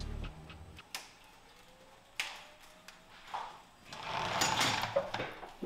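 Car lift lowering a car onto its wheels: scattered clicks and clunks, a heavier clunk about two seconds in, a faint rising whine, and a rushing hiss near the end.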